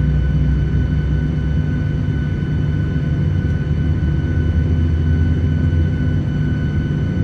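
Airliner jet engines running steadily: a constant low rumble with a steady high whine above it.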